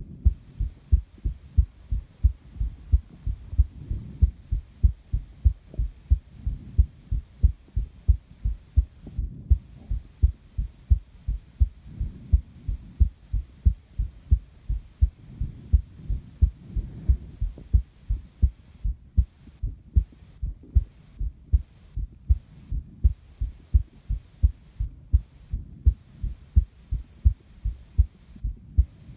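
A person's heartbeat picked up close against the body: steady, evenly spaced low thumps. Breathing swells and fades softly underneath every few seconds.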